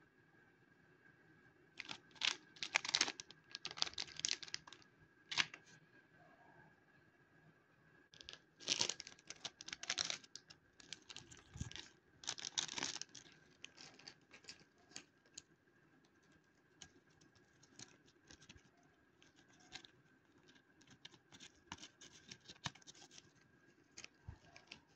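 Plastic wrapper of a Choki Choki snack pack crinkling and tearing as it is opened by hand, in two loud spells of rustling, then lighter scattered crinkles. A faint steady high tone runs underneath.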